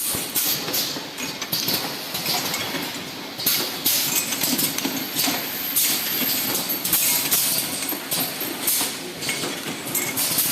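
Automatic perfume filling machine running: a continuous mechanical clatter with repeated short hissing bursts.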